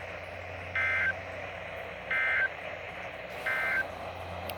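Three short EAS SAME digital data bursts, the end-of-message code sent after a NOAA Weather Radio alert. Each is a harsh two-tone squawk about a third of a second long, evenly spaced, over steady radio hiss and a low hum.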